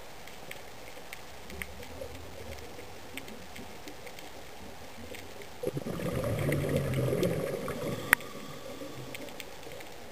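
Underwater ambience through a camera housing: a steady low hiss with scattered faint clicks. About six seconds in, a louder bubbling rush of a diver's exhaled breath lasts about two seconds and ends with one sharp click.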